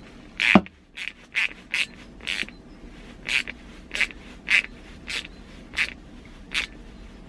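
Screwdriver tightening a worm-drive hose clip (Jubilee clip) on the water pump's hose: a string of about eleven short scrapes, roughly one every half second. The first is the loudest and ends in a falling squeak.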